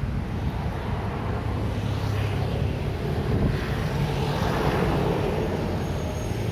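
City street traffic: vehicle engines running steadily, with a louder vehicle passing about halfway through.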